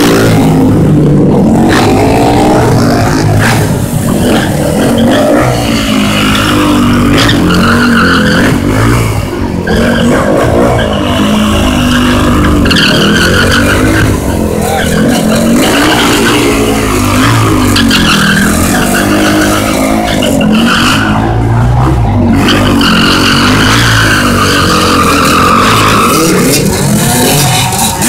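Dirt bike engine revved hard again and again, its pitch rising and falling every second or two, with the rear tyre squealing as it spins on the asphalt during donuts and burnouts.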